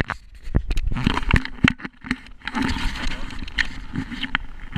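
Kayak paddle working the water from an inflatable kayak: splashing and dripping from the blades in two longer stretches, with many sharp clicks and knocks between them.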